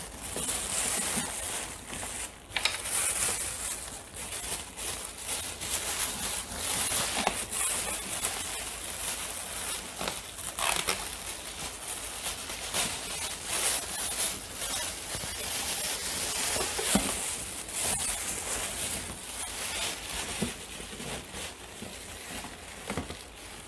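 Thin plastic packaging bag crinkling and rustling as hands pull it off and unwrap a wall fan's motor unit, a continuous, uneven crackle.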